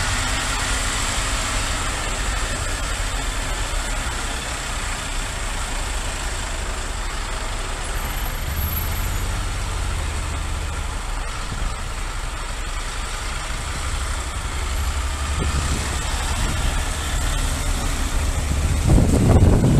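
Engine noise in slow city traffic, from a motorcycle and the coach close ahead of it, a steady low rumble. Near the end, wind noise on the microphone grows louder as the motorcycle picks up speed.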